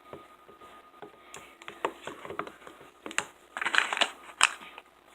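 Irregular small clicks, taps and scrapes of hands handling slime-making supplies, busiest from about three and a half seconds in.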